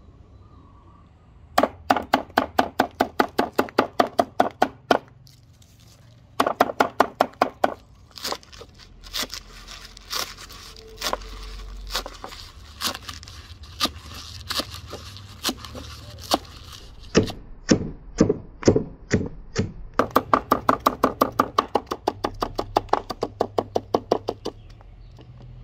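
Kitchen axe chopping green leaves on a wooden chopping block: runs of fast chops, about five a second, with a slower stretch of spaced single chops and a few duller, deeper knocks in the middle.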